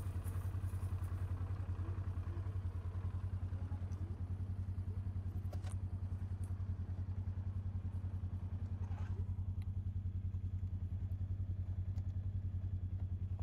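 A small vehicle engine idling steadily with an even low throb.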